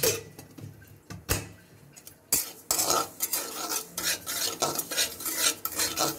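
Steel spatula stirring and scraping dry semolina around a metal kadai while it is lightly warmed. A couple of knocks come first, then from about two seconds in there are rapid scraping strokes, about three a second.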